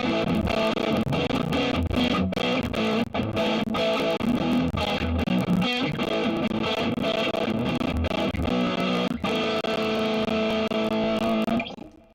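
Electric guitar played through a Mooer Solo high-gain distortion pedal, a clone of the Suhr Riot. A continuous distorted riff of chords and notes runs until the playing stops near the end and the last note dies away.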